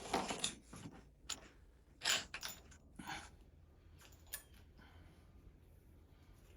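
Scattered light clicks and scrapes of hand tools and metal parts as a handlebar riser bolt and bushing are worked down into the triple clamp. The sounds are sparse, a few seconds apart.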